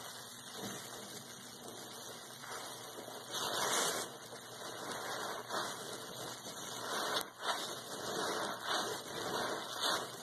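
Soap-soaked sponge squeezed and wrung by gloved hands in a basin of foamy water: wet squishing, sloshing and dripping in repeated surges, the loudest about three and a half seconds in.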